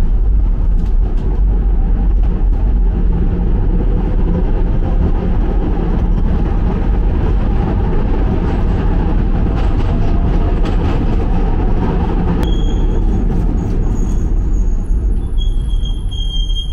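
Ganz MFAV metro train heard from inside the car, running through the tunnel with a loud, steady low rumble of wheels and running gear. In the last few seconds a high-pitched squeal comes in as the train slows toward the next station.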